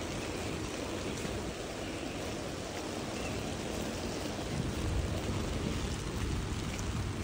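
Steady rain falling on wet pavement, an even hiss.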